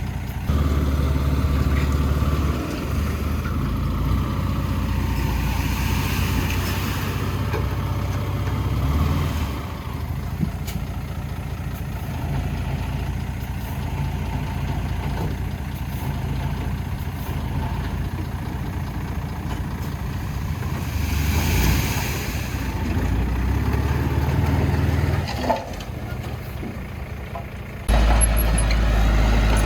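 Diesel engines of heavy earthmoving machinery (dump trucks and a bulldozer) running and working, their note shifting up and down. There is a brief hiss about two-thirds of the way through, and near the end the engine sound jumps abruptly louder.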